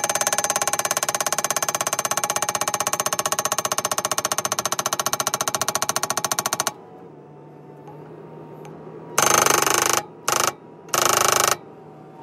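Skid-steer-mounted hydraulic post driver hammering a steel fence post in a rapid, even rhythm, with a metallic ring, and stopping abruptly about seven seconds in. The New Holland skid steer then idles, with three short, loud rushing noises near the end.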